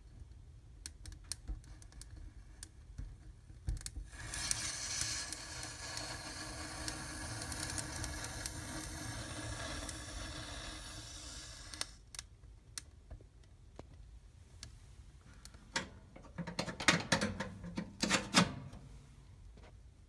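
Fir twigs crackling in a fireplace fire, then a small firework fountain hissing as it sprays sparks for about eight seconds, starting about four seconds in. Near the end comes a quick cluster of loud, sharp pops.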